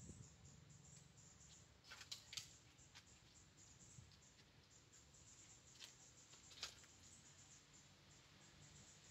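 Near silence: faint outdoor ambience with a fine high ticking, broken by a few soft, short clicks or scratches about two seconds in and again near seven seconds.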